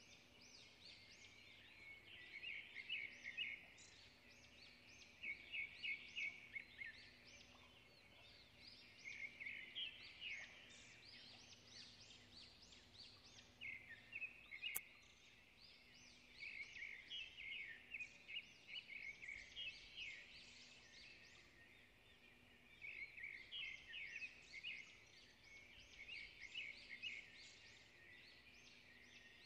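A small songbird chirping in quick high trills, in repeated phrases a few seconds apart. There is a faint steady hum beneath, and one sharp click about fifteen seconds in.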